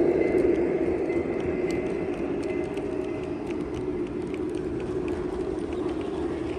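G-scale logging cars rolling past on the track, a mix of LGB and Bachmann log cars: a steady rolling rumble with scattered light clicks from the wheels on the rails, fading as the train moves away.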